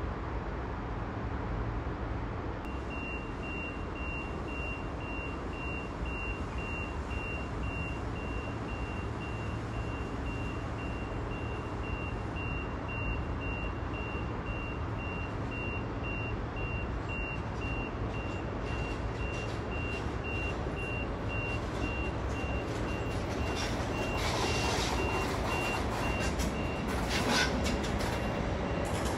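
A vehicle warning beeper sounds a steady, even run of short high beeps, starting a few seconds in and stopping near the end, over the constant low rumble of the rail yard. Towards the end the rumble grows louder, with crackling, as an SJ Rc electric locomotive rolls past.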